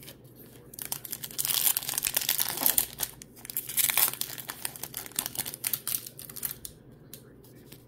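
Foil wrapper of a Topps 2024 Series 2 baseball card pack crinkling and tearing as it is ripped open by hand. The crackling starts about a second in and dies away near the end.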